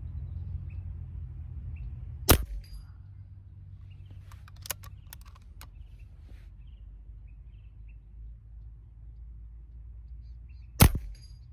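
Two shots from a Beeman Commander .22 PCP air rifle firing 25-grain H&N slugs, its power adjuster turned up: a sharp crack about two seconds in and another near the end, with a few faint clicks between.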